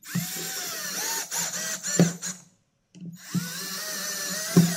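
Power drill driving a screw through a wooden strip into a board, in two runs of about two and a half seconds each, its motor whine wavering in pitch. Sharp clicks come through, with a quick cluster of them near the end.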